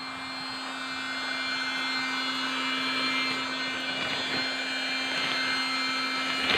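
Electric air pump running with a steady motor hum as it inflates an airbed. It grows slightly louder over the first few seconds.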